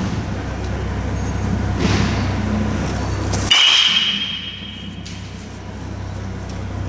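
Baseball bat striking a pitched ball once: a sharp crack followed by a ringing tone that fades over about a second and a half.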